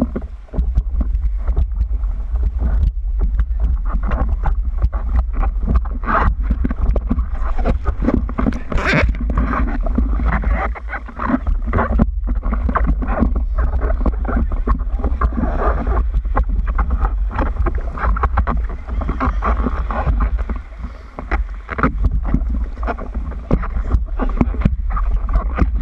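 Water slapping and sloshing against a surfboard's nose and the waterproof camera housing mounted on it, a dense run of irregular splashy knocks over a steady low rumble.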